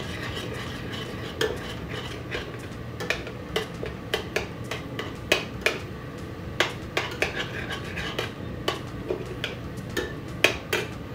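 A metal spoon stirring in a stainless steel stockpot, clinking and scraping irregularly against the pot as tomato paste is fried in oil with carrots and onions to cook off its raw taste.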